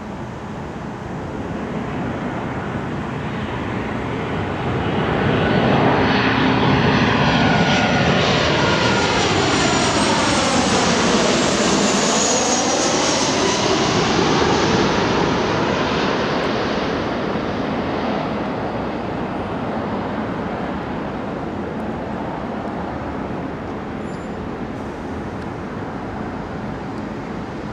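Boeing 737-800 on final approach flying low overhead: the rush and whine of its two CFM56 turbofan engines swells to full loudness and holds. About halfway through, a phasing sweep falls and then rises as the jet passes directly overhead, and the sound then slowly fades away.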